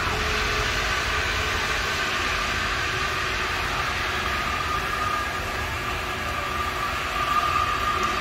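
Drop-tower ride's lift machinery running as the loaded gondola climbs the tower: a steady mechanical hum with a thin whine that grows stronger near the end.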